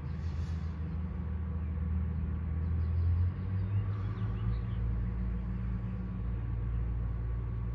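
A motor running with a low, steady rumble; its pitch steps up slightly about three seconds in.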